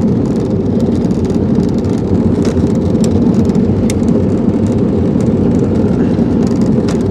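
Jet boat's engine and jet drive running steadily at low speed while the boat is manoeuvred, a loud, even rumble.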